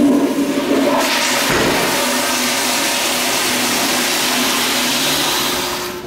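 Commercial toilet with a chrome flushometer valve flushing: a loud, steady rush of water that starts suddenly and tails off near the end.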